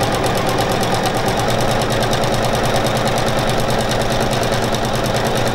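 Juki HZL-NX7 Kirei computerised sewing machine running steadily at speed, sewing a straight stitch through a quilt sandwich with its dual feed engaged: a fast, even rattle of needle strokes that does not let up.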